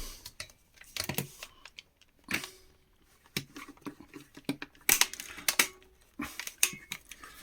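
Handling noise: a string of separate clicks, taps and light knocks, about two a second with short pauses, as hard objects and tools are picked up, moved and set down.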